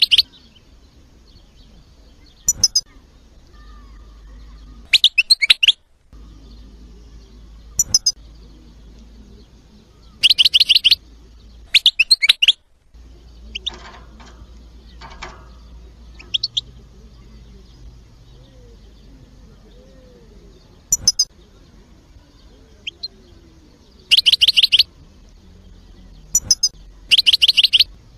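European goldfinch singing in short bursts of high twittering song, a phrase every two to three seconds with pauses between, over a faint low hum.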